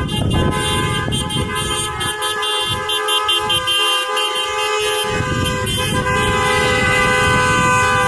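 Several car horns honking at once in long, steady, overlapping tones as a procession of cars drives past, over the road noise of the passing traffic.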